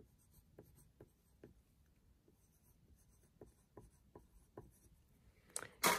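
Yellow wooden graphite pencil writing on a paper worksheet: faint, irregular short scratching strokes as a name is written out. A brief louder noise comes just before the end.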